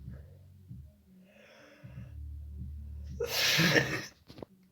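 A sick person draws a faint breath, then lets out one loud, harsh, explosive burst from the throat about three seconds in.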